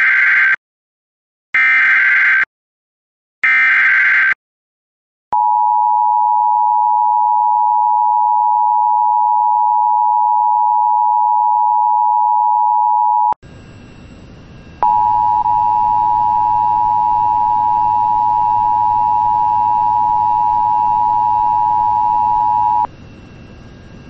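Emergency Alert System signalling: three short screechy SAME header data bursts about two seconds apart, announcing a new alert. A steady electronic attention tone follows for about eight seconds and cuts off abruptly. After a moment of hiss, a second attention tone of the same pitch plays for about eight seconds over a background of radio hiss and low hum.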